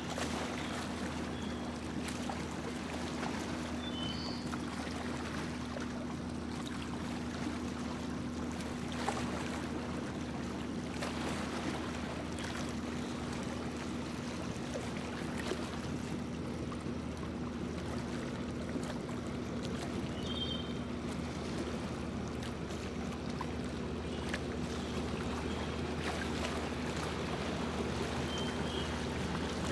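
Motorboat under way at a steady speed: the engine runs with an even hum while water rushes along the hull.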